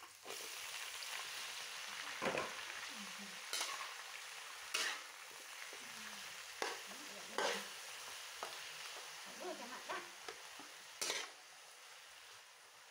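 Greens tipped into hot oil in a steel wok start to sizzle, a steady hiss that eases slightly near the end. A metal spatula scrapes and knocks against the wok every second or two as they are stir-fried.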